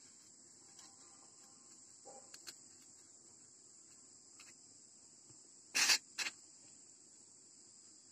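Steady high-pitched cricket chirring throughout, with a few faint taps and two short, sharp scrapes about six seconds in from a marker pen and hands working on a polystyrene foam block.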